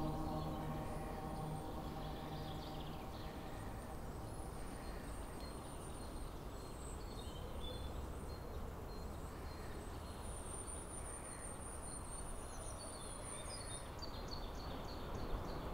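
Steady outdoor ambience with faint high bird chirps. A ringing gong-like tone dies away in the first few seconds.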